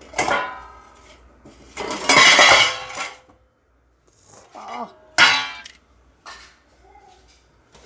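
Stainless steel pot and lid clanking: a ringing clank, then a longer loud scraping clatter about two seconds in, and another sharp ringing clang about five seconds in, as the lid is taken off the pot and handled.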